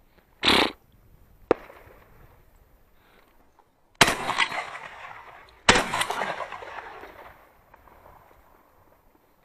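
Fabarm XLR5 Waterfowler semi-automatic 12-gauge shotgun firing three shots: one about half a second in, then two more about a second and a half apart near the middle, the last two ringing on in long fading echoes. A single sharp click comes about a second after the first shot.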